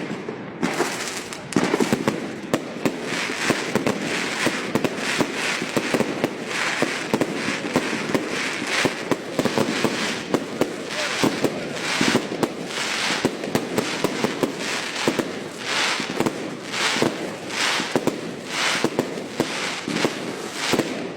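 Fireworks display going off in a dense, unbroken barrage: rapid bangs of shells bursting, one after another about every half-second to second, over continuous crackling.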